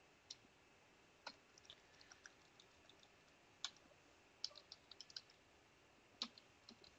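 Faint, irregular clicks of keys on a computer keyboard while a username is typed into a terminal command, in small clusters with gaps between them.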